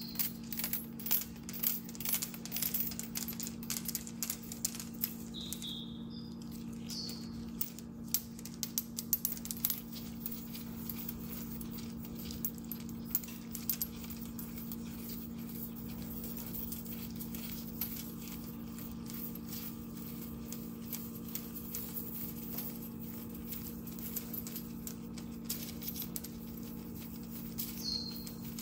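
Light clicking and metallic rustling of an Atmos 528 clock's steel mainspring as gloved fingers work grease along its coils, the coils ticking against each other. The clicks are busiest in the first ten seconds, with a few short squeaks, over a steady low hum.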